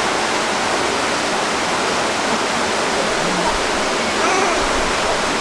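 Steady rush of flowing water, constant in level throughout.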